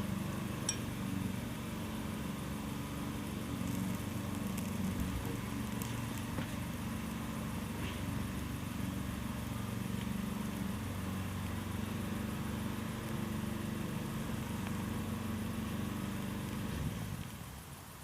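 Steady low engine hum, with a few faint clicks over it; the hum drops away suddenly about a second before the end.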